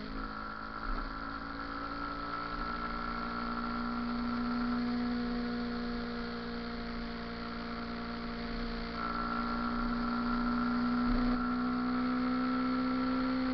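Motorcycle engine running at steady revs, its pitch holding almost level.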